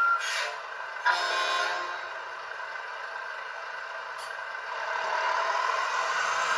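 Sound module of an RC Volvo truck model playing simulated truck sounds through its small speaker: a last reversing beep at the start, a sudden burst about a second in, then a steady running noise that grows louder near the end.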